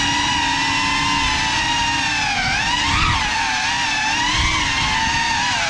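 Whine of a Cinelog 35 cinewhoop drone's brushless motors and ducted propellers in flight, its pitch wavering up and down with the throttle and rising briefly about three seconds in and again about a second and a half later.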